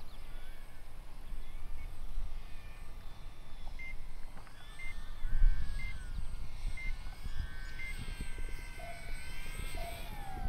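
Faint whine of an electric RC Corsair warbird's motor throttled back on landing approach, under a low wind rumble on the microphone, with high chirping calls. Midway, a short high beep sounds five times, about once a second.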